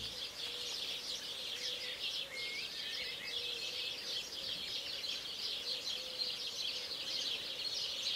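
Dawn birdsong in open countryside: a dense, continuous chatter of many small birds chirping, with an occasional slurred whistle from a single bird. A faint steady low tone runs underneath.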